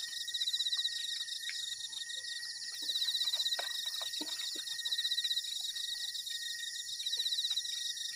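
Night chorus of crickets: a steady high-pitched ringing with a louder pulsing trill that swells about every two seconds. Faint small clicks and knocks are scattered through it.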